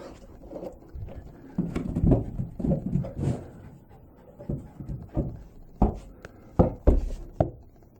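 A dog's ball bouncing down a flight of stairs: a run of separate knocks, most of them in the second half.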